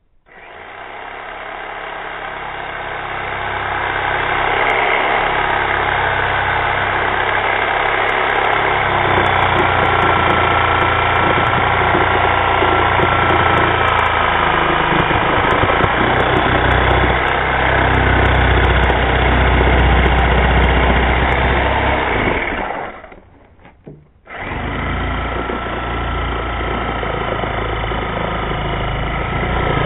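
Corded reciprocating saw running as its blade cuts through a tire's rubber where the bead is sealed to the wheel rim. It stops for about a second and a half around 23 seconds in, then starts again.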